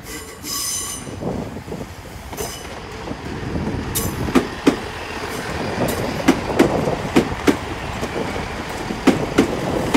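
Three-car Class 165 diesel multiple unit arriving slowly at a platform: a rumbling run with a brief high wheel or brake squeal near the start and again a couple of seconds later, then its wheels clicking irregularly over rail joints and points.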